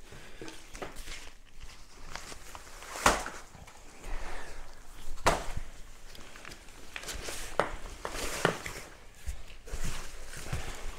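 Deflated Therm-a-Rest NeoAir XTherm Max sleeping pad being unrolled and handled on a wooden floor: rustling of the pad's fabric, with footsteps and a few sharp knocks, the loudest about three seconds in.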